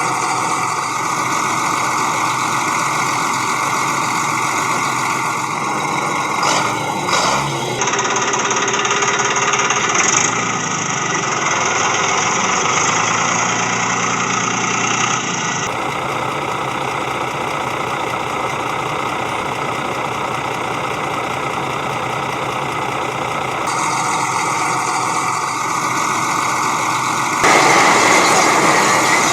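Engine-like motor sound running steadily, changing abruptly in tone several times and growing louder near the end.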